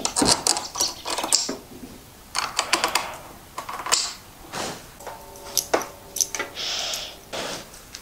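Light metal clicks and taps as a GPR steering stabilizer is seated on its mount and its bolts are started with an Allen key, with a brief ringing tone about five seconds in.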